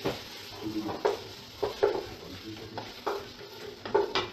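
Wooden spoon stirring diced vegetables in a stainless steel pot, knocking and scraping against the pot about once a second, over a steady sizzle of the vegetables frying.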